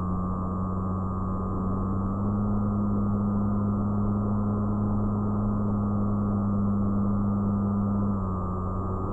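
FPV fixed-wing plane's motor and propeller, heard from the onboard camera: a steady hum over rushing wind. Its pitch steps up about two seconds in and drops back about eight seconds in as the throttle changes.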